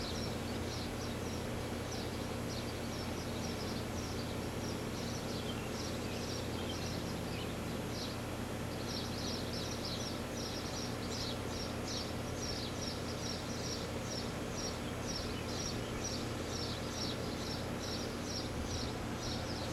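A 4-ton R-22 air-conditioning condenser running with a steady low hum, its compressor kept on for the oil injection. Short high chirps from an animal repeat over it, about two a second, most regular in the second half.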